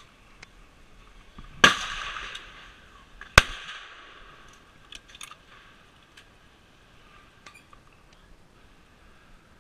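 Two rifle shots about two seconds apart, each followed by a decaying echo; the sharper, louder second one is the 9.3x62 Blaser R93 firing. A few faint clicks follow.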